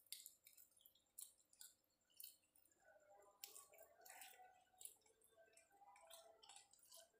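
Faint wet clicks and smacks of a mouth chewing a soft date.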